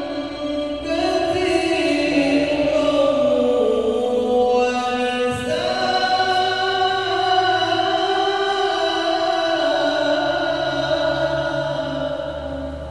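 A male reciter chanting the Qur'an in the melodic tilawah style into a microphone, holding long, ornamented notes that glide slowly up and down. One phrase ends and the next begins about five and a half seconds in.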